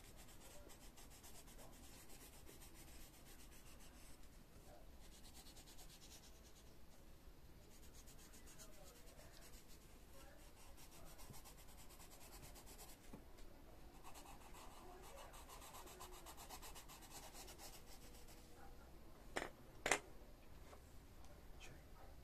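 Faint scratching of a coloured pencil shading on paper in quick back-and-forth strokes. Two sharp taps a few seconds before the end.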